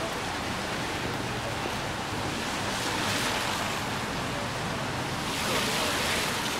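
Steady hiss of a rain-wet city street, swelling twice: once about three seconds in and again near the end.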